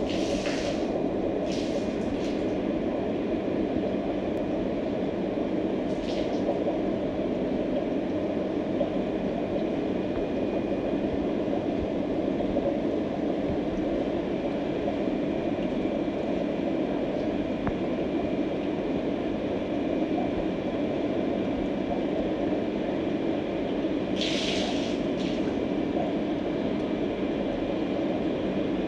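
Steady low rumbling drone of aquarium equipment, an air-driven sponge filter and its pump running, with a few brief hissing flares near the start, about six seconds in and near the end.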